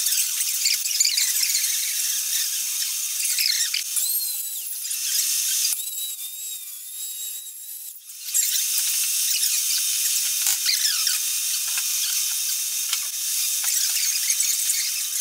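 Hand-ground HSS fly cutter on an Induma horizontal mill cutting a tooth slot into a solid brass escapement blank: a high-pitched cutting screech with wavering squeals. About six seconds in it drops to a quieter steady whine for about two seconds, then bites in again at full strength.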